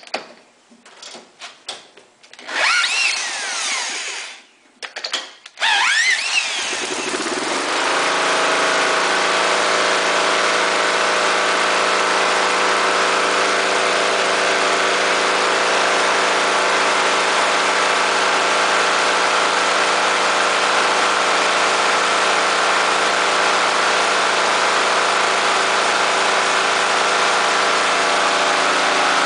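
A power drill spins over a 12 HP Briggs and Stratton mower engine in two short bursts, standing in for its non-functional starter, its whine rising each time. The engine catches about seven seconds in and then runs steadily.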